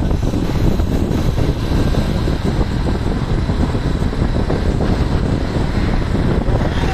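Steady loud road-traffic rumble of heavy vehicles passing close by, with wind buffeting the microphone.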